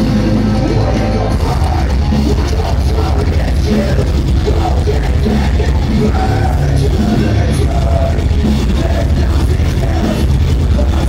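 Live heavy rock band playing loud through a concert hall's PA, with yelled and sung vocals, heard from among the audience.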